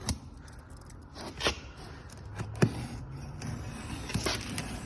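New car parts and their packaging being handled: a few scattered clicks and knocks with brief rustling over a low steady hum.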